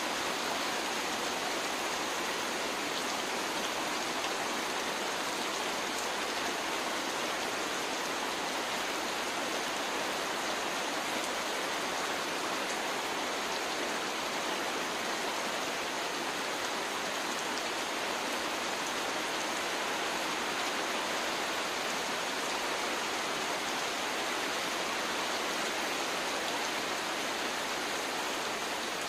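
Heavy rain pouring steadily onto river water.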